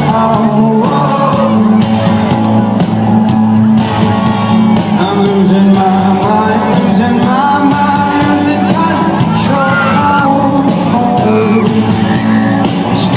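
Live indie rock band playing a song with a lead singer, the crowd shouting and whooping along.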